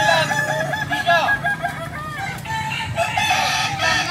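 Many Ayam Kukuak Balenggek roosters crowing over one another. Their long crows break into rapid runs of repeated notes, the breed's tiered crow.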